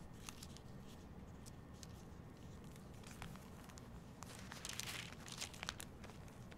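Faint rustle of thin Bible pages being turned, with scattered light clicks and a louder rustle about two thirds of the way through.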